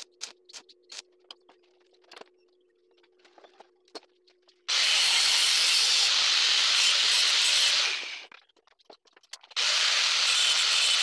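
Stick-welding tacks crackling in short snaps, about three a second, over a steady hum during the first second or so, with a few more snaps after. Then an angle grinder cuts steel at the vise in two loud, even runs of about three seconds each with a short pause between, trimming the tacked piece flush.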